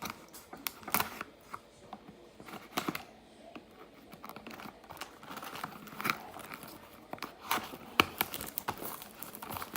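Plastic shrink-wrap factory seal on a trading card box being torn open and peeled off, crinkling and crackling in irregular bursts that grow busier toward the end.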